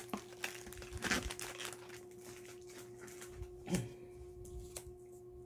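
Plastic wrappers of small Ritter Sport chocolate bars crinkling as they are handled, with scattered crackles that are busiest in the first two seconds and sparser after. A short vocal sound comes about two-thirds of the way in.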